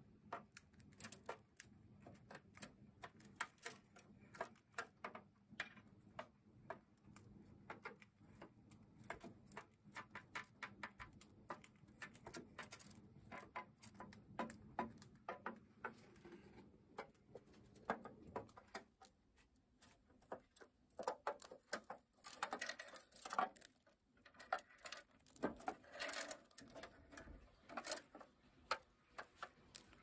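Faint, irregular clicking and tapping of a lutino cockatiel moving about inside a plastic toy house, a little busier for a few seconds after the middle.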